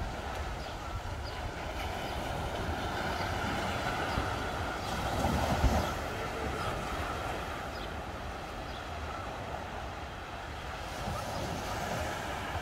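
Wind buffeting the microphone with a steady low rumble over open-air beach ambience, building to a stronger gust about halfway through.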